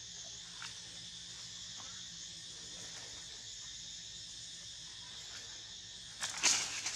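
Steady chorus of insects, a high continuous hum. About six seconds in, a short loud rustle of branches and leaves as a young macaque climbs down through them.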